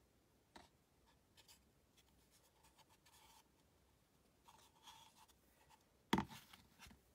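Quiet handling of a painted MDF model temple: faint rubs and small taps as it is turned in the hands, then a short knock about six seconds in as it is set down on the cutting mat, and a lighter one just after.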